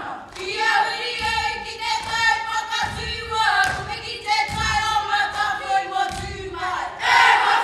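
A group of performers singing a sustained melody together in unison, with low thuds about every second and a half underneath.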